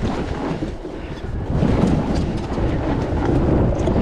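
Wind rumble on the microphone with rolling noise from a mountain bike in motion, growing louder about one and a half seconds in.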